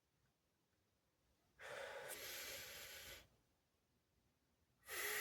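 A man's breathing close to the microphone: two long, audible breaths, the second about three seconds after the first and ending in a faint voiced sigh.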